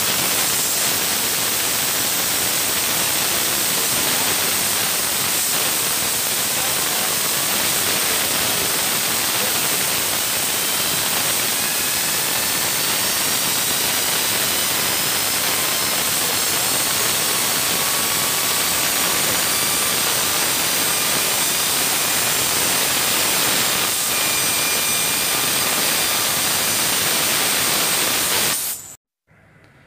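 Compressed air at about 7 bar blasting from a nozzle into a hand-held ball bearing, spinning it at very high speed: a loud, steady jet-like hiss with faint whistling tones that slowly rise in pitch. It cuts off suddenly near the end.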